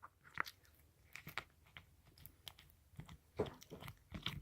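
Slime being squeezed and worked by hand, giving faint, scattered small clicks and crackles, a few more together about three and a half seconds in.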